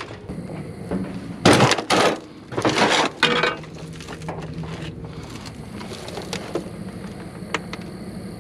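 Scrap and debris clattering and rattling in two loud bursts in the first few seconds, followed by a few light clicks as small parts and a plastic control box are handled.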